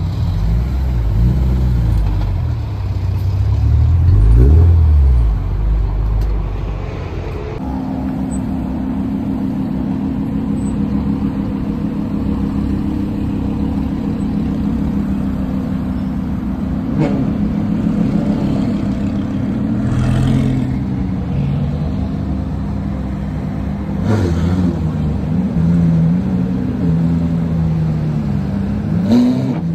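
Car engines running: a deep rumble with one rev rising and falling about four seconds in, then a steady idle from about a quarter of the way through, and more revs rising and falling near the end.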